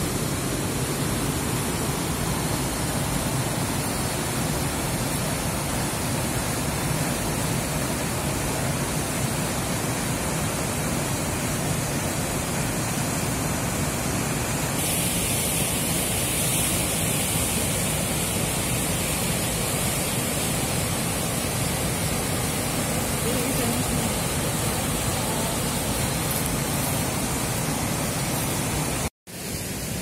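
Waterfall rushing steadily over rocks, a continuous even roar of water. Its tone changes about halfway through, and it cuts out for a moment near the end.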